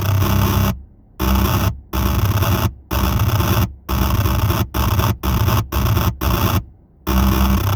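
Error Instruments Data Synth putting out a hissing, static-like noise over a low hum. The noise is chopped into about ten bursts that cut off and restart abruptly, and the bursts get shorter partway through.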